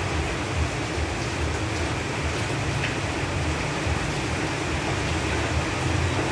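Steady rain falling on leaves, an even hiss of drops with a constant low rumble underneath.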